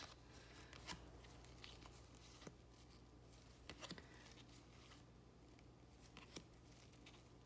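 Near silence, with a few faint ticks of baseball trading cards being flipped through in gloved hands over a steady low electrical hum.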